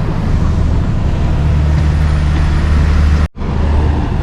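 Steady low drone of a tour boat's engines heard on board, with a split-second dropout a little after three seconds.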